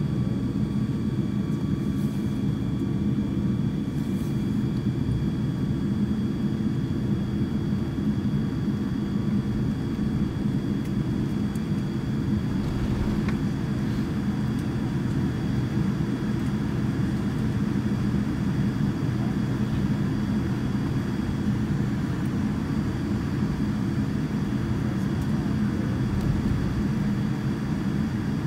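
Steady cabin noise inside a Boeing 787-9 airliner taxiing after landing: a continuous low rumble and hum, with faint, even high-pitched tones above it.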